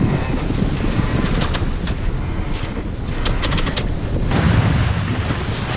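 Wind buffeting the microphone on the deck of a catamaran under sail, over the rush of sea water along the hulls. A quick run of crackling pops comes about three seconds in.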